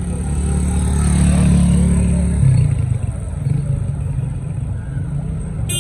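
Street traffic: a car's engine grows louder as it passes close by, then eases off. A short car horn toot sounds near the end.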